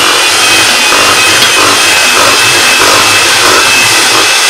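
Electric mixer running steadily, its beaters whirring through butter and egg in a metal bowl: a loud, even motor noise with a thin high whine.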